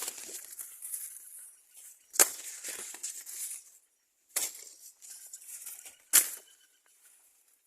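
Four sharp strikes, roughly two seconds apart, each followed by a brief rustle.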